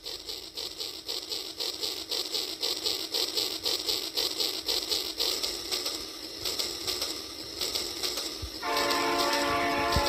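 Battery-powered toy steam locomotive running on plastic track with a quick, even rhythmic chugging. Near the end it sounds a steady horn.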